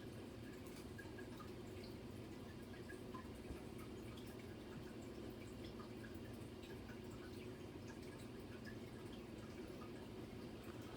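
Faint steady room hum with scattered small ticks and clicks from handling a plastic toy airplane model while its stickers are being repositioned.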